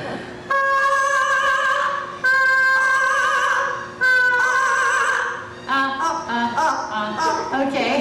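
Yellow-naped Amazon parrot singing in an operatic voice: three long, high held notes with a wavering vibrato, each over a second long, then a run of shorter, choppier notes.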